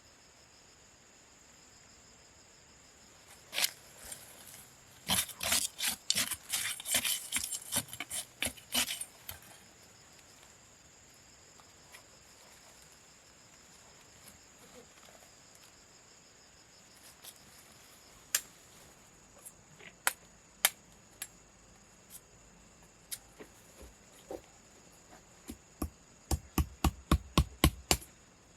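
Insects chirring steadily in the background while sharp knocks ring out: a dense cluster of rapid knocks a few seconds in, scattered single knocks, then a quick run of about a dozen blows near the end.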